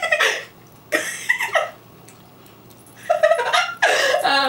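Young women's loud, high-pitched laughter in three short bursts, mixed with gagging as a mouthful of applesauce is spat out.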